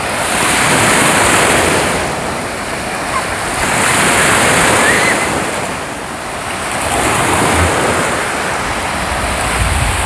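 Small waves of the Sea of Azov breaking and washing up a sandy beach, swelling and fading about every three seconds, with wind buffeting the microphone.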